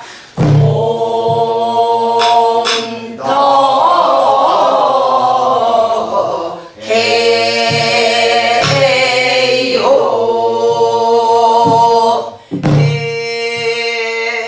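A woman singing a Korean Namdo folk song in long, held notes, accompanied by deep strokes on a buk barrel drum and a few sharp stick clicks.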